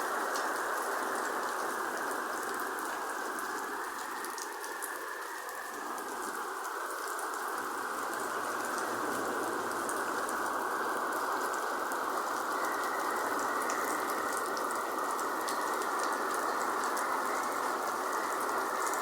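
Heavy downpour: a dense, steady hiss of rain with scattered sharp drop ticks, growing slightly louder in the second half.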